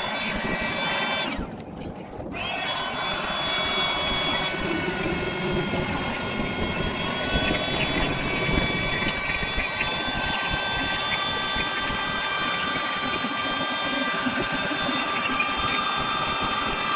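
Electric air pump running with a steady whine. It cuts out for about a second near the start, then starts again. It is not managing to inflate the inflatable boat's safety chamber.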